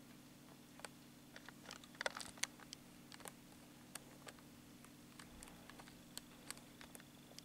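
A cat licking her fur while grooming: a run of faint, irregular clicks, busiest about two seconds in, over a steady low hum.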